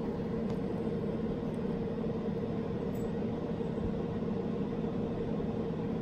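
Steady room hum with a faint held tone and no distinct events.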